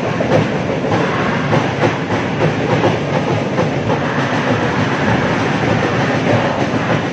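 Large crowd of school supporters chanting and cheering together in an indoor sports hall, a loud, continuous din with no single voice standing out.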